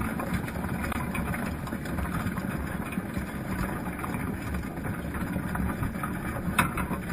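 Low, steady, muffled rumble of river water recorded underwater by a camera fixed to a crab pot on the bottom, with scattered faint clicks and one sharper click near the end.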